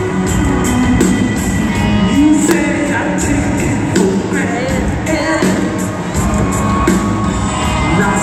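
Live rock band playing in an arena, heard from the audience seats: electric guitars, bass and drums, with the drummer singing lead into his microphone.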